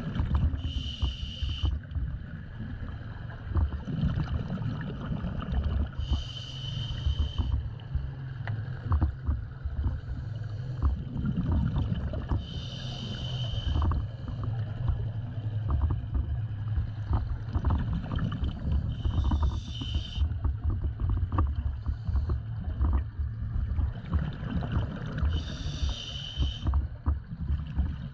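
A scuba diver breathing through a regulator underwater: a hissing inhalation about every six seconds, five times, over a constant low rumble and crackle of water and exhaled bubbles.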